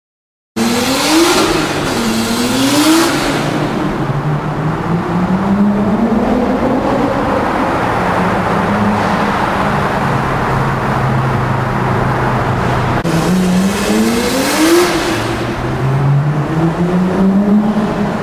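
Car engines accelerating through a road tunnel, heard from inside a moving car, with tunnel echo. The revs climb and drop twice early on, hold fairly steady through the middle, then climb hard again twice near the end.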